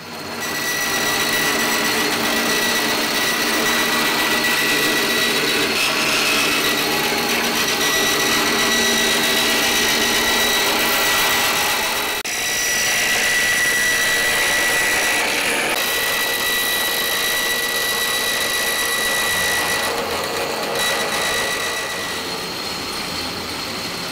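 Large bandsaw running and cutting through a thick Douglas fir frame timber: a loud, steady saw noise with a high whine through it. It breaks off briefly about halfway through and drops somewhat near the end.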